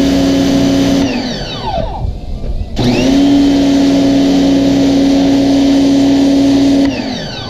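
Ivation 2200 PSI electric pressure washer's motor and pump running with a steady hum. It cuts out about a second in and winds down, starts again with a quick rise in pitch just under three seconds in, and winds down once more near the end. The machine's auto-stop shuts the motor off whenever the spray trigger is let go.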